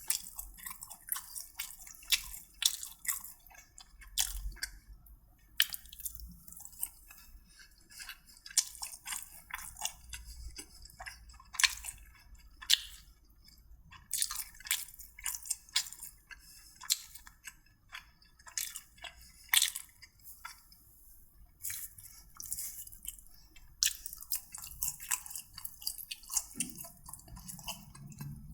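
A person chewing and crunching hot butter cuttlefish, heard as an irregular run of crisp clicks and crunches with short pauses.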